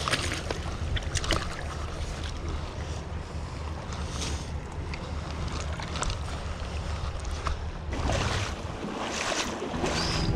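Shallow creek water running over a rocky bed, with wind rumbling on the microphone. Small splashes and knocks of hands and a landing net in the water come now and then, a little louder near the end.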